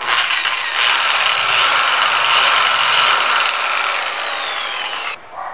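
Corded electric drill running under load, boring a hole through a clear acrylic sheet. Its whine falls slightly in pitch over the last couple of seconds, then cuts off abruptly about five seconds in.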